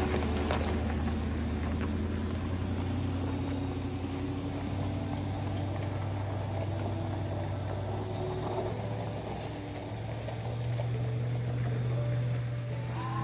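Low, steady engine drone that rises slightly in pitch about ten seconds in.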